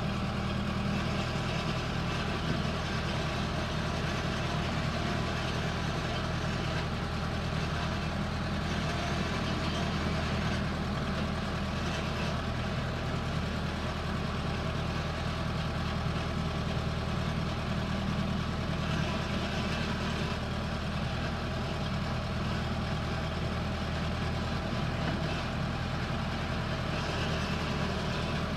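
Case 580L backhoe's diesel engine idling steadily.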